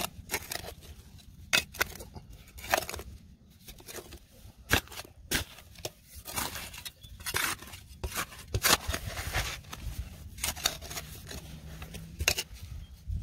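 Metal digging tool chopping and scraping into dry, crumbly soil: irregular crunching and scraping strokes, each short and sharp, as a hole is dug out.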